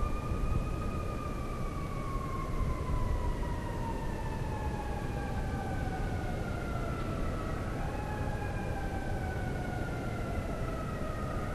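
Siren wailing, its pitch falling slowly for several seconds, rising again about eight seconds in and falling once more, over a steady low rumble.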